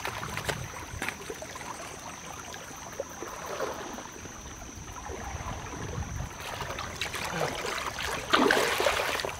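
Pond water running and trickling down a freshly dug trench cut through a beaver dam. Near the end a shovel splashes and scrapes in the muddy flowing water, the loudest part of the sound.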